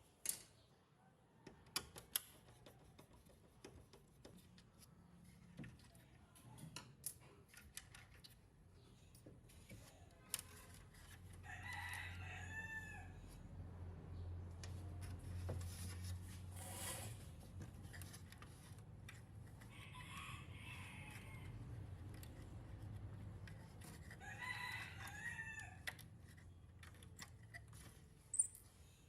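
A rooster crowing three times, faintly, with scattered sharp clicks and taps of handwork and a low hum underneath.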